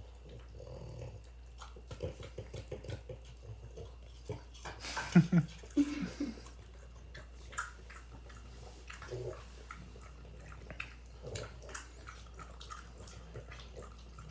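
French bulldogs eating hand-fed apple slices: a quick run of small crunching clicks about two seconds in, then a loud, short pitched dog sound, twice, about five to six seconds in, followed by scattered faint chewing clicks.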